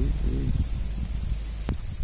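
Dry corn leaves and stalks rustling and crackling, over a low wind rumble on the microphone that drops away after the first half-second, with one sharp click near the end.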